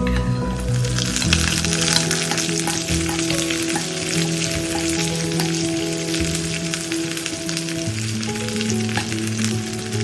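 Pieces of soaked dried beef sizzling as they drop into hot clarified butter in a wok, then frying steadily while stirred with a metal spoon. The sizzle swells about half a second in. Soft background music with held notes plays underneath.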